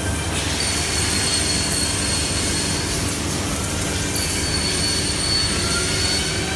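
CNC hinge-boring and lock-mortising machine running, a steady machine noise with a high whine from its spindles. The whine drops out for about a second and a half in the middle and then comes back.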